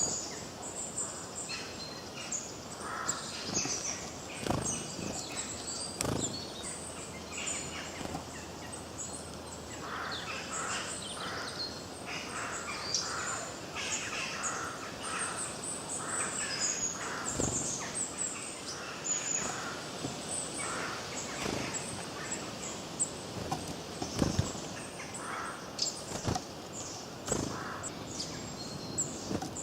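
Several birds chirping and singing in many short, overlapping calls over a steady background hiss, with a few short low thumps scattered through.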